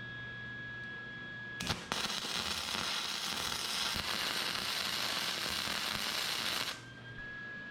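Arc welder striking with a sharp snap, then a steady crackling sizzle of the welding arc for about five seconds that cuts off suddenly, as a cable stop is welded on.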